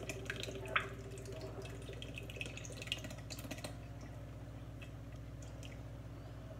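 Canned milk pouring in a thin stream from a tin can into a stainless steel mixing bowl of pumpkin pie filling: a faint trickle with a few light ticks.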